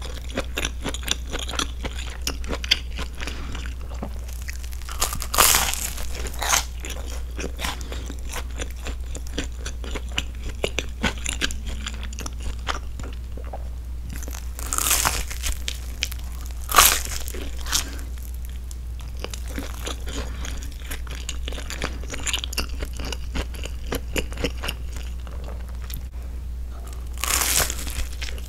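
Close-miked chewing and biting of a grilled broccoli-and-cheese sandwich: crunching toasted crust and many small wet mouth clicks. A few louder breaths through the nose come through now and then, over a steady low hum.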